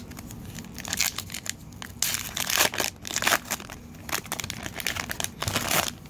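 Wrapper of a 2018 Bowman baseball card pack being torn open and crinkled by hand, in irregular crackling bursts, loudest in the middle and again near the end.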